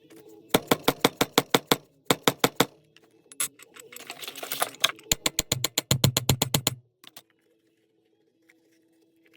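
Several quick runs of sharp, evenly spaced taps, about six a second at first and faster in the last run, which ends about seven seconds in.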